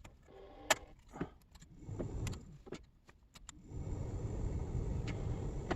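A few plastic clicks and knocks from the dashboard HVAC controls being worked. About two-thirds of the way in, the 1999 Chevrolet Suburban's heater blower fan starts and runs steadily.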